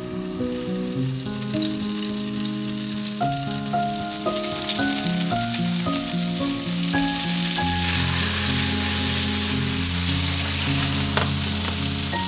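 Beef meatballs frying in hot olive oil in a pan, a steady sizzle that builds over the first few seconds and grows strongest in the second half. Background music with held melodic notes plays over it.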